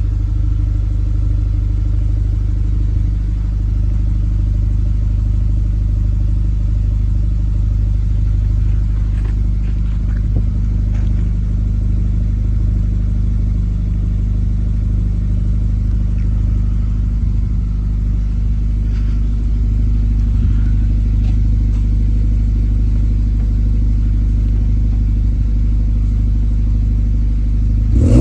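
Audi A5 exhaust idling with a steady, low tone. Its catalytic converter has been cut out and replaced with a flame arrestor, and its mufflers are stainless steel.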